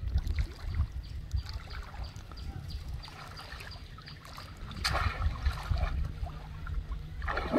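Water sloshing and trickling as a woven bamboo fish trap is lifted out of shallow water and held up, water streaming and dripping from it, with louder splashes about five seconds in and again near the end.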